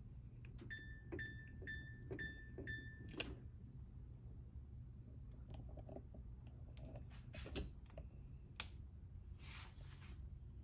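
Five short electronic beeps in quick succession, about two a second, then a few light clicks and two sharp clicks, over a faint steady low hum.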